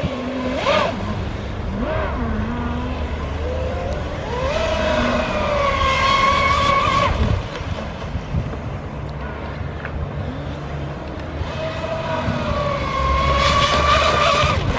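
Pro Boat Zelos 36 RC catamaran's twin brushless electric motors whining at full speed. The high whine rises and holds steady twice, about four seconds in and again near the end, as the boat makes fast passes.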